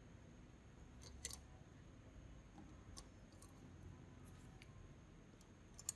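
A few faint, light clicks over near silence: tweezers and a small metal pin tapping against a plastic tag and the steel handle of a pair of tin snips as the parts are fitted, the sharpest click near the end.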